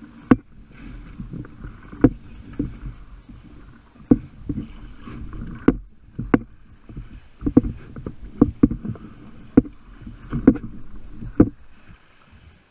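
Folding kayak and its outrigger floats dragged up a pebble beach: a rough grinding of the hulls over the stones, broken by many sharp, irregular knocks.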